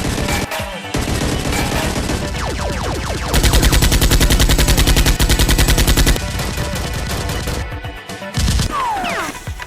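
Automatic gunfire sound effects in rapid bursts. A louder, very fast, evenly spaced burst runs from about three and a half to six seconds in.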